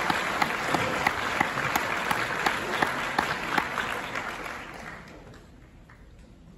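Audience applause, with individual sharp claps standing out, dying away about five seconds in.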